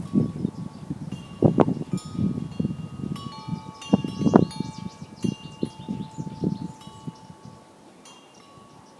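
Wind chimes ringing, several clear notes at different pitches sounding and overlapping. Under them is a low rustling with knocks, sharpest about one and a half and four seconds in, and it all dies away near the end.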